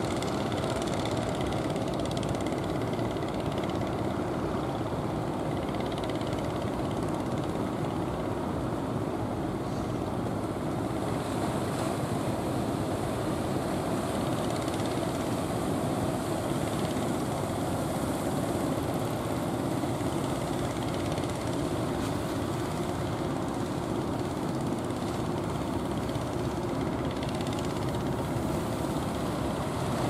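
Engines of large wooden fishing boats running steadily at close range as the boats push through rough water.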